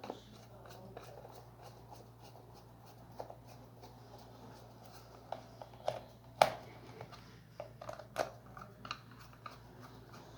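Faint, scattered clicks and taps of a screwdriver and the plastic multimeter case being handled as the back cover is screwed back on, with sharper clicks about six and eight seconds in.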